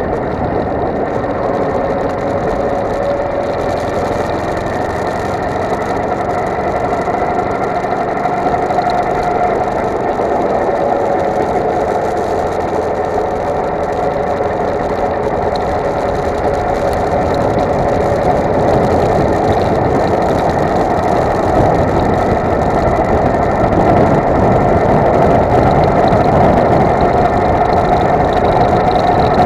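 Go-kart engine running at speed, heard from on board the kart, its pitch wandering up and down through the corners and the sound growing louder in the second half.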